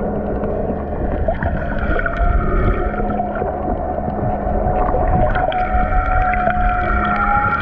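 Underwater recording of a boat's engine drone carried through the water: several steady tones that drift slightly in pitch, over a low rumble of water against the camera housing.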